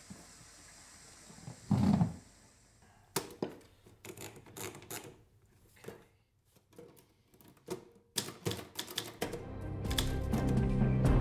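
Typewriter keys being struck in irregular bursts of sharp clicks, after a single low thump about two seconds in. Music swells in near the end.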